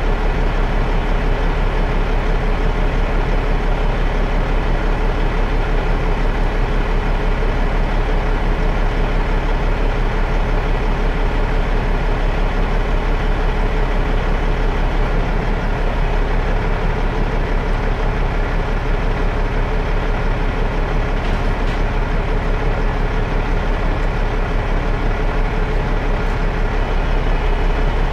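Heavy-duty Peterbilt rotator wrecker's diesel engine running steadily at constant speed, with a steady hum and a deep rumble.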